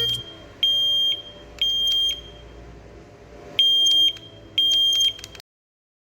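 Tuya Wi-Fi smoke detector sounding its alarm: loud, high-pitched beeps about half a second long, in groups of three with a pause of about a second and a half between groups. This is the temporal-three pattern, the standard smoke-alarm evacuation signal. The sound cuts off abruptly a little over five seconds in.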